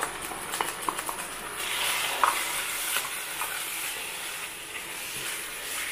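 Wet ground masala paste sliding into a hot pan of oily roasted onion masala, then worked in with a wooden spatula: a few light clicks first, then a frying sizzle that rises about one and a half seconds in, with a single knock of the spatula against the pan just after.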